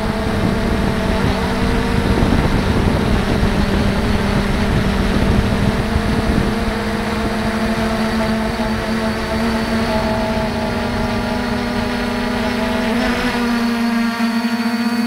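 3DR IRIS+ quadcopter's four brushless motors and propellers humming steadily, heard from its onboard camera, over low wind rumble on the microphone that eases about two seconds before the end.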